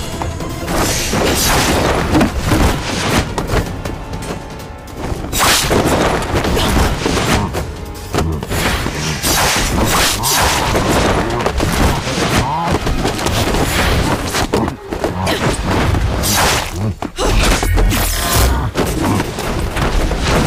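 Dramatic action music under staged fight sound effects: repeated whooshes, punches and thuds, with heavier deep booms near the end.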